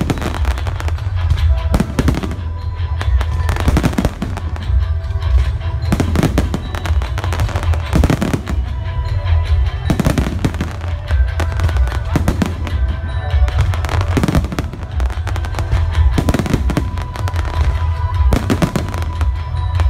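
Aerial fireworks shells bursting in rapid succession, sharp reports every second or so over a continuous low rumble, with the pyromusical show's music playing along.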